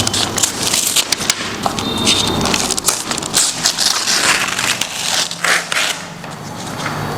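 Protective packaging being torn open and crumpled by hand: irregular crackling and crunching of wrapping around a large picture frame.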